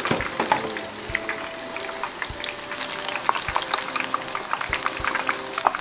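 Butterbur-sprout tempura deep-frying in a small pan of oil: an even bubbling with many scattered crackles and pops. The oil has cooled from too much going in at once, so it is not yet frying crisp.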